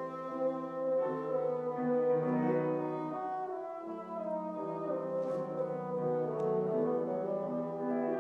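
French horn playing a slow melody of sustained notes, accompanied by a grand piano.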